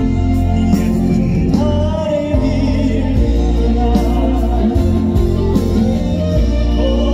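Live amplified band music with a heavy, steady bass line and a voice singing long, slightly wavering notes from about a second and a half in.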